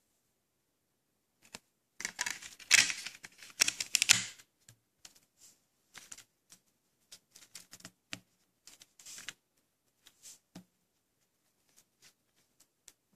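Disc being pressed into a blue plastic Blu-ray case, with a quick run of plastic clicks and rattles about two seconds in, then scattered light clicks and taps as the case is handled.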